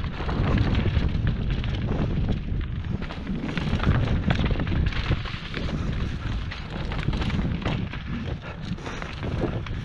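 Wind rumbling on a helmet-mounted action camera's microphone during a fast mountain bike descent, mixed with the tyres crunching over dirt and stones and the bike rattling and clattering over rocks and roots.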